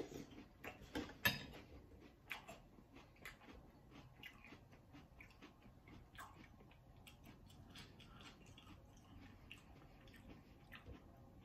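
A person chewing a mouthful of Cap'n Crunch Berries cereal in milk: quiet, irregular crunching, busiest in the first few seconds, with one sharper crunch about a second in.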